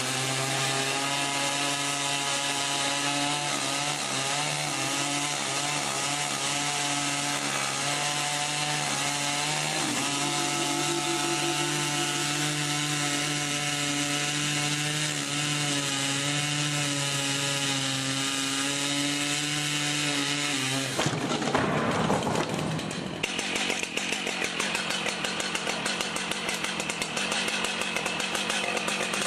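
Large chainsaws running at high revs and cutting wood: a steady, high engine note for most of the time, then about three-quarters through it switches abruptly to a rougher, rattling saw sound whose pitch falls before it settles.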